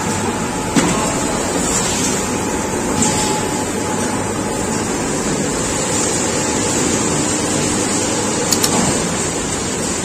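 Slanty chips machine with a rotating stainless-steel drum running steadily, a constant mechanical noise with a faint steady tone. A knock about a second in, and a few short clicks near the end.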